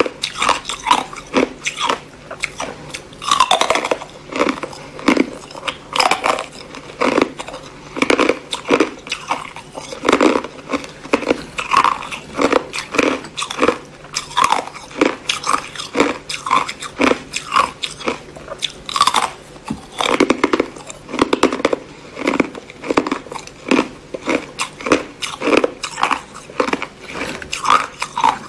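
Teeth biting and crunching through red-coloured ice cubes, chewing the pieces in quick, repeated crunches, several a second.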